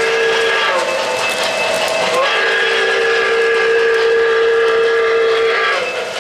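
O-gauge model steam locomotive sounding its steam whistle from its onboard sound system: one blast that ends a little under a second in, then a longer blast of about three seconds, each sagging in pitch as it starts and stops. The steady running noise of the train and its cars lies under the whistle.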